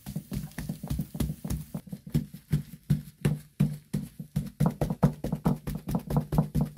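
A bundle of thin wooden sticks tapping rapidly into flatbread dough on a wooden board to prick it, about six dull knocks a second, with a brief lull around four seconds in and louder strikes after.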